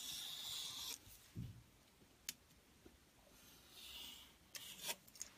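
Snap-off craft knife blade drawn along the edge of a card template, scratching through paper in short cutting strokes, with a few small clicks and one soft thump between strokes.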